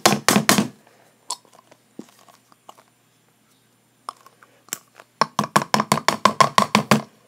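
Rapid, even knocking of a plastic glue bottle, about seven knocks a second, as it is shaken and banged to get the last glue out. One burst stops under a second in and another runs from about five to seven seconds in, with a few faint ticks between.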